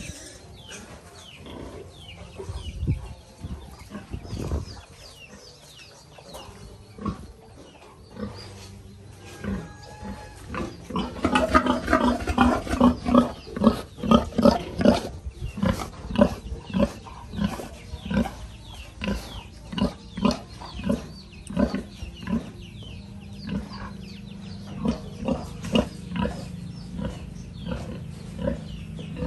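Pigs grunting: short, low grunts that repeat about once a second, louder for a few seconds a little before the middle.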